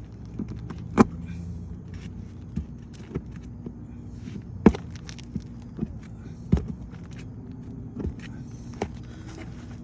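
Irregular sharp knocks and clicks from hand work on an asphalt-shingle roof during a shingle replacement, five or six strikes spread over several seconds, over a steady low hum.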